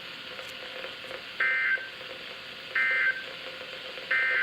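Emergency Alert System end-of-message signal on NOAA Weather Radio: three short bursts of buzzy SAME data tones with about a second's pause between them, over steady radio hiss. It marks the end of the weekly test transmission.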